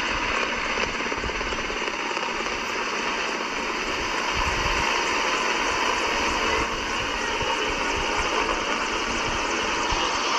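Formation of display helicopters flying overhead, a steady rotor and engine noise.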